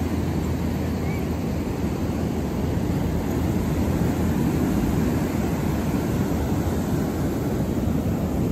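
Ocean surf breaking and washing up onto a sandy beach: a steady low rush of waves that swells slightly about halfway through.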